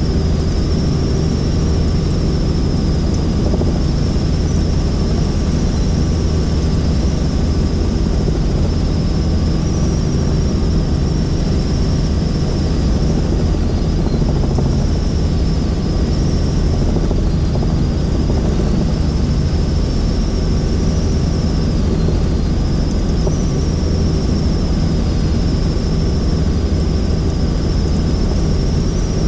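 Helicopter in flight: steady rotor and engine noise with a high whine that wavers slightly in pitch.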